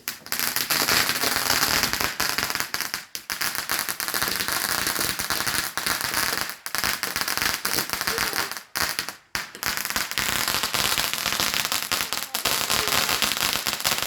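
Fireworks crackling: a dense, rapid run of small pops and crackles, broken by a few short gaps about 3, 6.5 and 9 seconds in.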